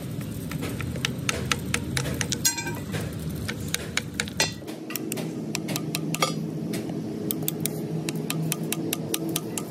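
Irregular light metallic taps and clicks, a few a second, over a steady low hum.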